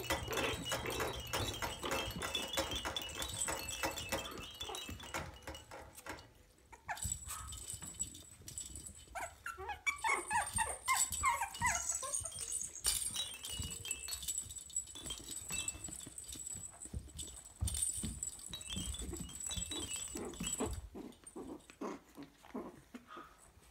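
Maltese puppies playing and scuffling on soft bedding, with a run of short, high puppy whimpers about ten seconds in.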